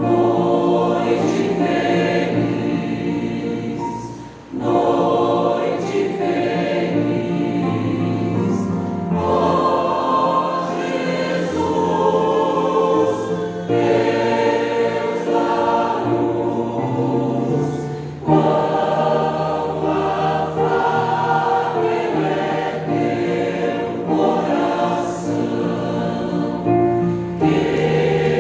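A choir singing in sustained chords, in phrases a few seconds long, with a brief pause about four seconds in.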